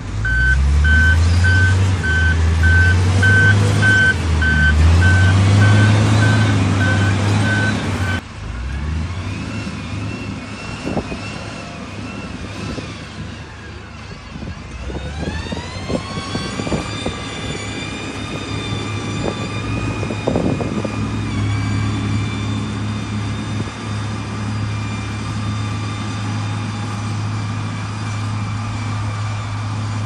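XCMG motor grader's diesel engine working, with its reversing alarm beeping a little under twice a second for the first eight seconds or so. Later the engine speeds up and settles into steady running under load.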